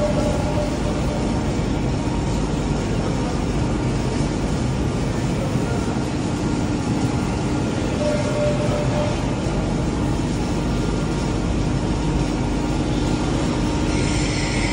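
Steady factory-floor machinery noise: a continuous rumble with a faint hum under it. The noise gets brighter and hissier near the end.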